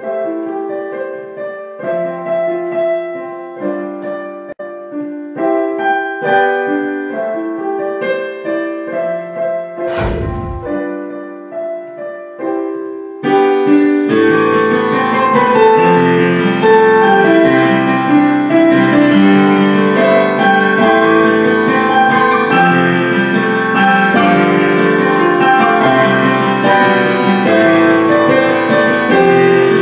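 Background piano music: sparse piano notes at first, joined by a fuller, louder arrangement about thirteen seconds in. A single low thump sounds about ten seconds in.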